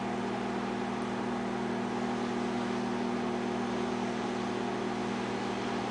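GE countertop turntable microwave oven running, a steady hum.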